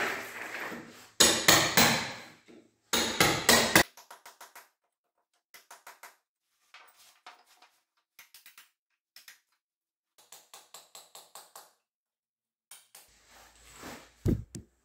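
Hammer striking a steel chisel, chipping plaster and brick out of a wall chase: two quick runs of hard blows in the first four seconds, then much lighter, rapid taps in short runs.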